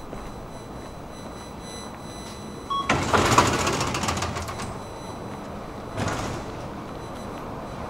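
Metro ticket barrier giving a short beep, then its gate panels sliding open with a loud rushing, clattering sound that fades over about two seconds. A second, shorter sliding sound follows about three seconds later.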